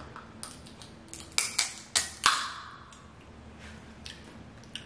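Crab leg shells being cracked open by hand and teeth: a string of sharp cracks and snaps, four loud ones coming close together between about one and two and a half seconds in.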